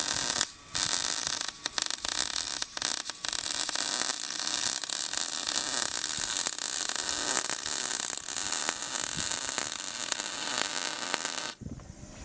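Electric welding arc crackling and hissing steadily, with a few brief breaks in the bead, then cutting off abruptly near the end.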